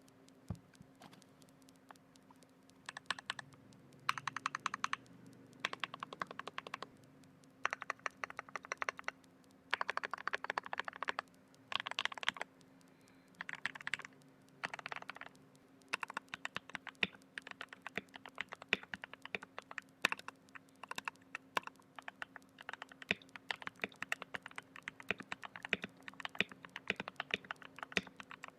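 Mechanical keyboard with lubed Gateron Brown KS-9 switches in a foam-dampened CIY Tester 68 case being typed on. A few scattered keystrokes come first, then short bursts of fast key presses, then steady continuous typing through the second half. A faint steady hum runs underneath.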